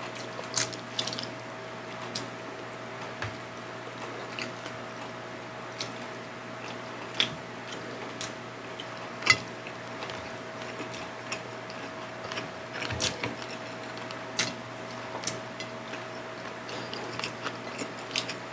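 Close-miked eating by two people eating fried milkfish and rice with their hands: scattered wet clicks and smacks of chewing and of fingers in the rice. One sharper click comes about halfway through, over a faint steady hum.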